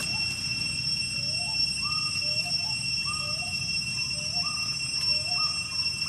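A short two-part rising call repeated about once a second over a steady high-pitched drone.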